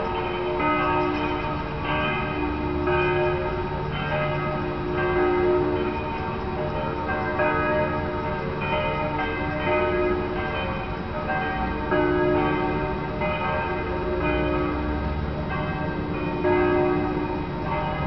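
Several church bells ringing together in a continuous peal, their strokes overlapping at different pitches.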